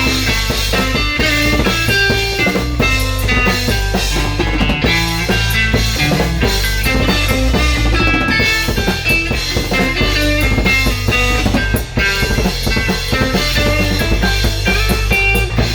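Instrumental passage of a rock song, with drum kit and guitar and no singing.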